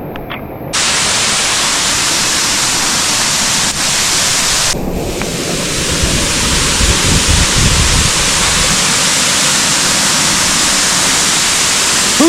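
Waterfall close by: a loud, steady rush of falling water, starting abruptly under a second in, with some heavier low rumble partway through.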